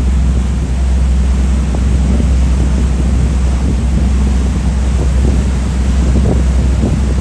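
Steady low engine drone from a vehicle running at constant speed, with wind noise on the microphone.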